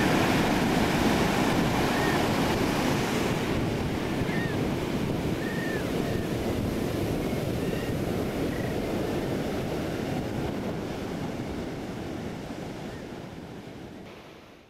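Surf breaking and foam washing up a sandy beach, with wind buffeting the microphone and a few faint high chirps; it fades out over the last few seconds.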